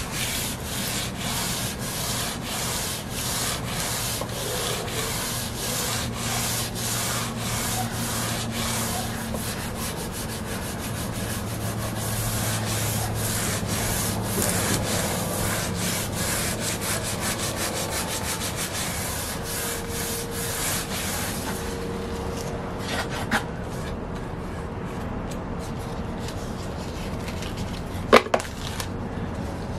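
Fine sandpaper on a sanding block rubbed back and forth over a finished rosewood veneer panel, leveling the finish, in quick, even strokes of a few a second. The strokes die away about three quarters through, followed by a light tap and a sharp knock near the end.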